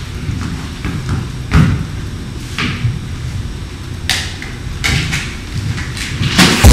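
Footsteps and scattered knocks on a wooden stage floor as a plastic toolbox and a hard hat are handled and carried. Just before the end, applause starts.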